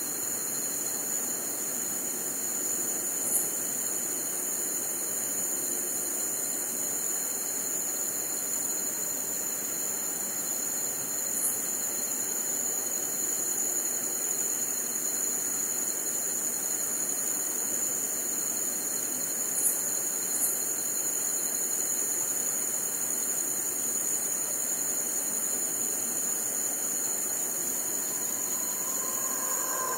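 Crickets trilling in a steady, unbroken high-pitched chorus over an even insect hiss, with a few brief sharp chirps, one near the start and a close pair midway.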